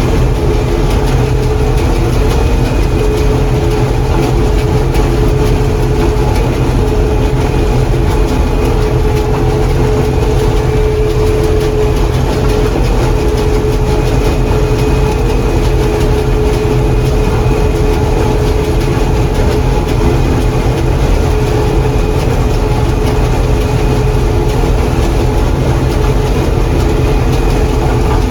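John Deere 4400 combine running steadily while harvesting corn, heard from inside the cab: a constant heavy engine drone with a steady mechanical whine over it.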